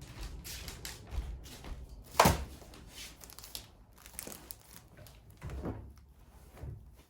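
Handling noises: one sharp knock about two seconds in, then several softer knocks with rustling in between.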